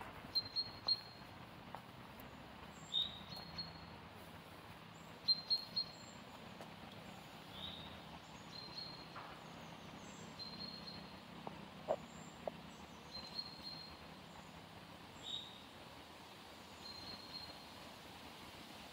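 Small birds chirping, short high notes repeated every few seconds in small clusters, over a faint steady outdoor background hum. A couple of faint clicks come about two thirds of the way through.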